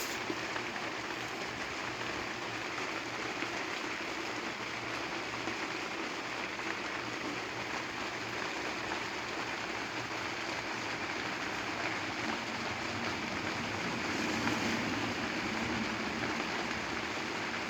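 Kawamoto N3-206SH well pump's electric motor running steadily: a low hum under a constant rushing noise. This is the abnormal noise the pump is sold as junk for, with no check made that it draws water.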